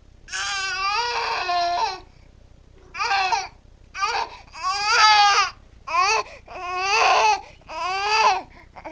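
Infant crying in a string of about seven wails, the first and two later ones each lasting about a second, the rest shorter.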